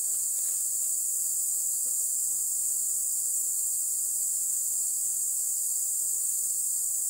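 A steady, high-pitched chorus of insects, like crickets, that neither starts nor stops.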